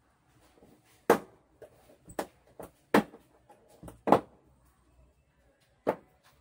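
Sharp knocks and clacks of the LED TV set being handled on a tile floor: about six, irregularly spaced, the loudest a little after one second, at about three seconds and at about four seconds in.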